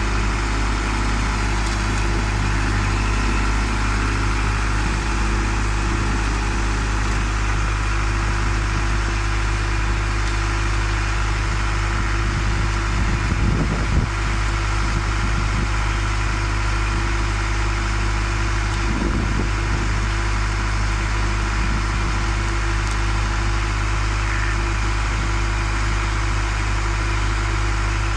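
Concrete mixer with pump running steadily: a constant low machine drone, with one brief knock about halfway through.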